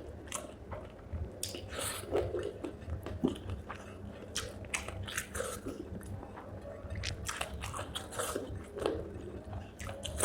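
Close-up chewing and biting of spicy chicken feet, with irregular wet crunches and crackles as skin and cartilage are chewed.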